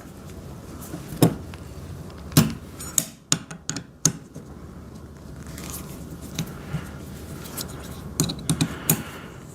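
Metal parts and hand tools clinking and clicking as the stand of an electric wood chipper is taken apart by hand, in scattered knocks with a quicker cluster about three to four seconds in and again near the end.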